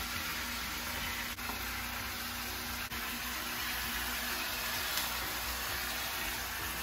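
Chunks of beef searing in a frying pan: a steady sizzle as they are turned with a spatula, with a couple of faint clicks.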